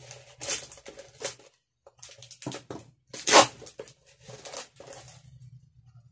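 Scissors slicing through packing tape on a cardboard parcel, with the tape tearing and the cardboard scraping in a run of short, scratchy strokes. The loudest rip comes a little past three seconds in.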